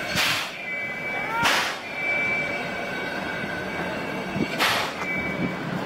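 Steam train, the C11 190 tank locomotive hauling old wooden-seated passenger coaches, running slowly with a steady high squeal. Four short, sharp hissing puffs come at uneven spacing: two close together in the first two seconds, then two more near the end.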